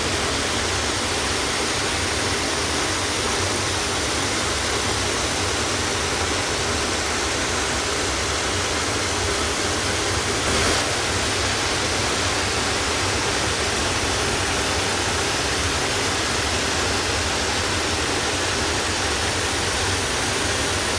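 Waterfall: water falling and rushing, a steady, unbroken wash of noise.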